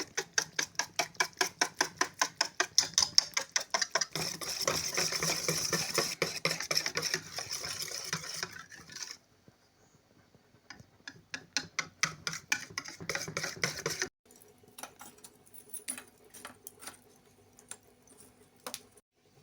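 Rapid rhythmic clicking strokes, about five a second, that turn into a denser scraping rattle for a few seconds before stopping. After a short pause the clicking comes back, then stops suddenly and gives way to scattered faint clicks.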